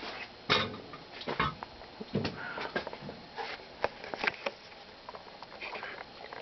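1989 Fasco Charleston ceiling fan running on medium speed, with a faint hiss and many irregular clicks and ticks. It is the bearing noise typical of a long-abandoned fan whose motor bearings need oil, along with a switch housing that vibrates.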